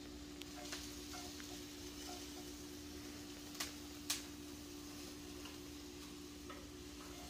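Quiet kitchen room tone: a steady low electrical hum with a few faint clicks, two sharper ones about half a second apart midway through.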